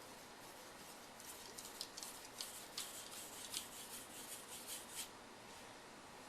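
Steel knife blade of a Richmond Artifex (AEB-L steel) being stroked across a waterstone with a little mud worked up on its surface: a series of faint, hissy scraping strokes, about three a second, starting about a second in and stopping near the end.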